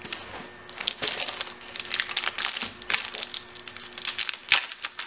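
A clear plastic sleeve wrapped around a sheet of cardstock crinkles and rustles as it is handled. The crackles are irregular, with a sharper one near the end.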